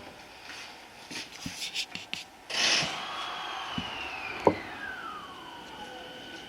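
Electric train's traction motor whine heard from inside the carriage as the Musashino Line train pulls away. A short hiss comes about two and a half seconds in, then one tone glides steadily down in pitch over about three seconds, with scattered light clicks and knocks.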